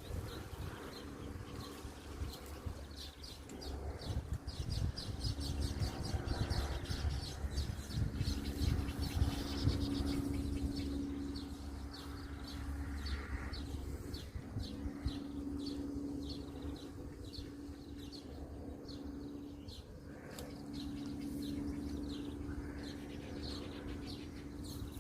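Small birds chirping in quick repeated notes, over a low steady hum that comes and goes in stretches of a few seconds.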